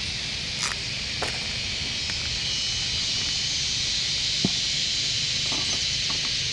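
A steady hiss, broken by a few light clicks and taps as small metal tools are handled at a camp stove.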